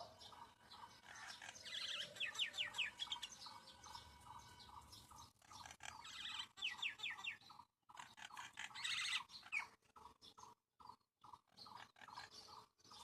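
Small birds chirping and chattering, with quick series of rapid high notes about two seconds in, again near seven seconds and once more near nine seconds.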